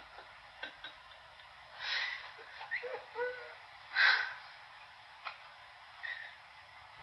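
Hiccups: a series of short, sudden gulping hiccups at irregular intervals, the loudest about four seconds in, with faint breathy sounds between them.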